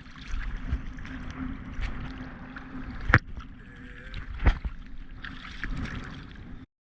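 Water sloshing and splashing around a surfer paddling a surfboard, with two sharp splashes about three and four and a half seconds in.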